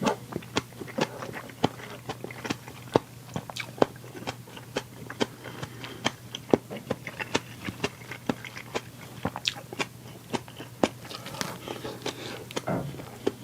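Close-miked eating sounds: chewing and biting food, with frequent short sharp clicks and crunches throughout.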